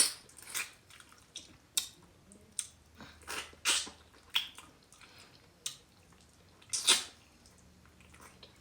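Close-up mouth sounds of a person eating stewed oxtail and fufu: irregular wet smacks and chewing, with a louder one about seven seconds in.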